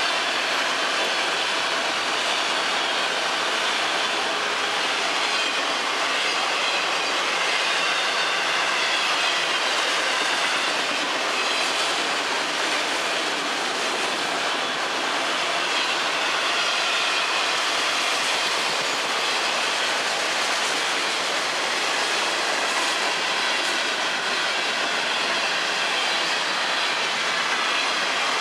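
Florida East Coast Railway freight cars rolling steadily past close by: a continuous rumble and rattle of wheels on rail, with a faint wavering squeal from the wheels.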